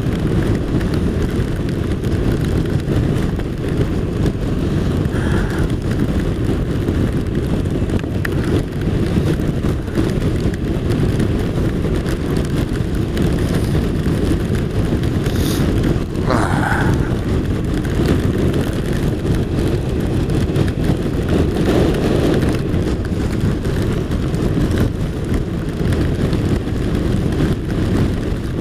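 Steady wind rush and engine drone of a BMW RT touring motorcycle cruising at an even speed, heard from the rider's position.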